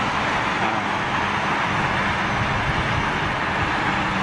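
Steady roar and hiss of distant engines, holding level without rising or falling.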